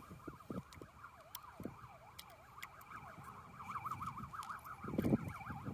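Distant siren, its pitch swinging up and down about twice a second, then faster, about five times a second, from a little past the middle, with scattered knocks and a thump near the end.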